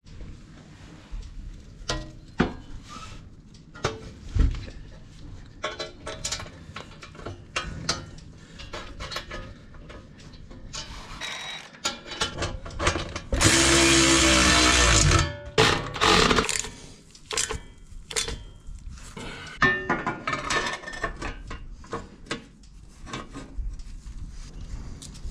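Metal clinks and knocks as steel step brackets and bolts are handled and fitted against the tractor's frame. A cordless power tool runs for about two seconds a little past halfway, driving a bolt home, and is the loudest sound.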